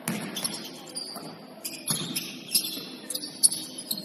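Basketball players' sneakers squeaking on the court: many short, high squeaks, with a couple of sharp knocks, one near the start and one about two seconds in.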